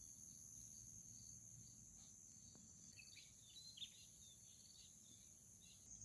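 Faint, steady, high-pitched drone of insects, with a few short bird chirps about three to four seconds in.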